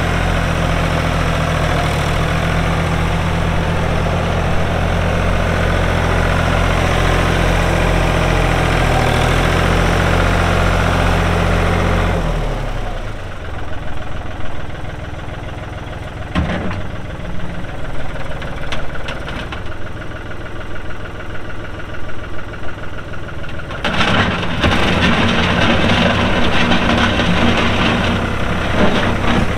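The diesel engine of a 1999 New Holland TN65S loader tractor running steadily as the tractor is driven around. The engine sound drops about twelve seconds in and picks up again near the end.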